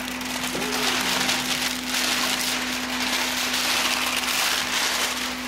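Clear plastic wrapping crinkling and rustling as it is pulled off a cardboard box and crumpled in the hands.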